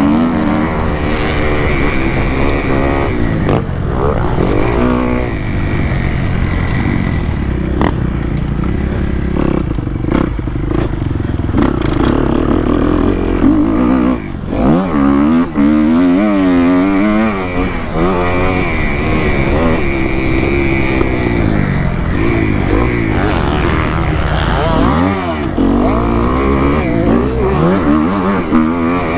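Kawasaki KX250 motocross bike engine revving hard around a track, its pitch rising and falling again and again as the rider opens and closes the throttle and shifts. The engine drops off briefly about halfway through before picking back up.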